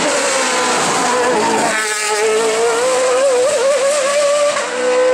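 Race car engine at high revs on a hill-climb course, its pitch dropping at a gear change about two seconds in and again near the end, then climbing as it accelerates.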